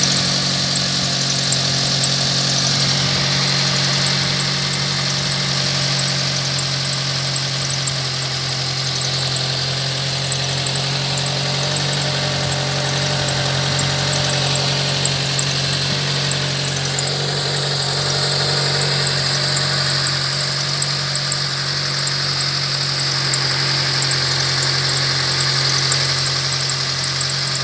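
Mitsubishi Colt engine idling steadily on a cold start, with a high squeak or whistle over the running. The owner hears it only while the engine is cold, after which it goes away, and does not know the cause.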